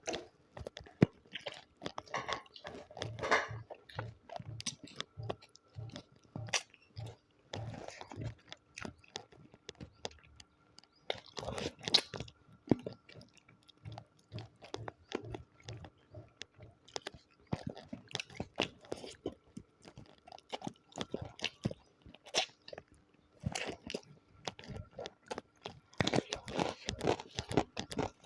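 Close-miked chewing and crunching of food, with many irregular crunchy bites.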